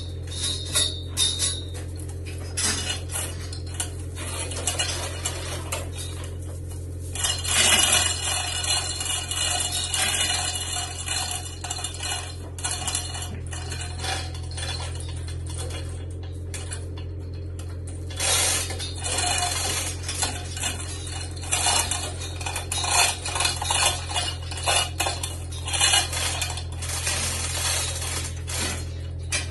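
Hand chain of a chain hoist rattling and clinking as it is hauled through the block, moving a heavy oak beam. It comes in two long spells of quick metallic clatter, one about a quarter of the way in and one through the second half, over a steady low hum.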